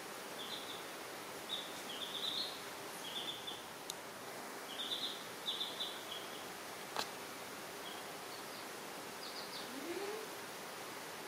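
Baby chicks peeping: short, high peeps in quick little runs, over a steady background hiss, with a couple of sharp clicks.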